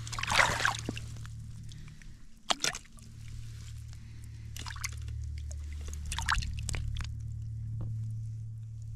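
Water sloshing and splashing in about five short bursts, the loudest about half a second in, over a low steady hum.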